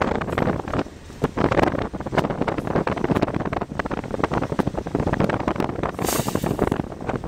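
Wind buffeting the microphone over a steady rumble of running noise, while driving alongside a moving freight train.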